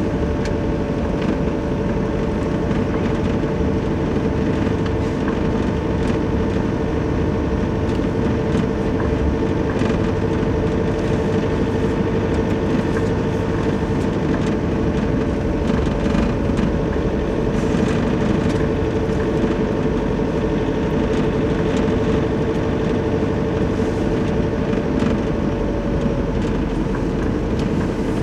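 Nissan Navara pickup driving along a packed-snow road, heard from inside the cab: a steady engine hum and tyre rumble with a constant drone, with no change in pace.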